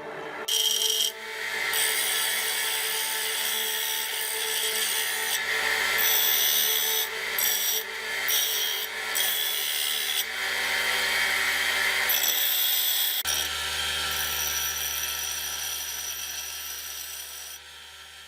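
Restored double-wheel bench grinder running with a steady motor hum while a workpiece is pressed against the wheel again and again, the rough grinding noise starting and stopping with each pass. The hum grows stronger about thirteen seconds in, and everything fades out at the end.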